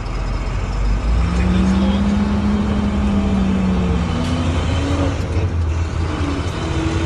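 Box truck's engine pulling the truck away and accelerating, heard from inside the cab: a steady low rumble, louder from about a second in, with an engine note that climbs in steps.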